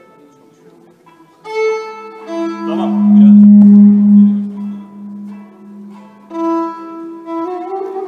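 Violin being tried out at a sound check: a few faint notes, then bowed notes from about a second and a half in. A loud low note is held for about three seconds, and a sliding phrase follows near the end.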